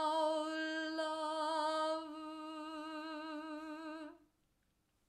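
A woman's voice singing the word "howl" on one long held note with an even vibrato, the W flowing unbroken into a sustained L. It gets quieter about two seconds in as the vowel closes onto the L, and stops about four seconds in.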